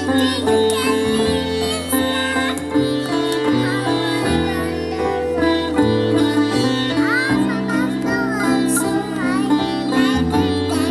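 Instrumental Indian music led by a sitar: plucked notes with bent, gliding pitches over held low notes that change every second or two.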